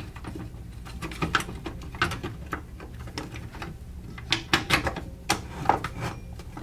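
Clicks and knocks of a Desert Tech SRS-A2 rifle's chassis side panel being seated over the receiver and the rifle being handled on a wooden workbench. The knocks come irregularly, sharper and more frequent from about four to six seconds in.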